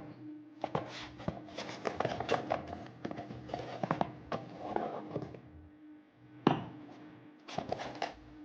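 Kitchen utensils and their packaging being handled: a busy run of clicks, taps and light clatter, with one louder knock about six and a half seconds in.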